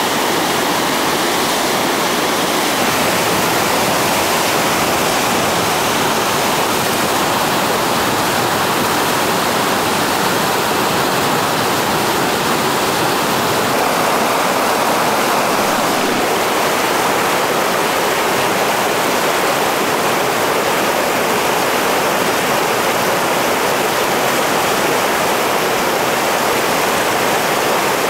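Whitewater river rapids rushing: a loud, steady, even churning of fast-moving water below a waterfall.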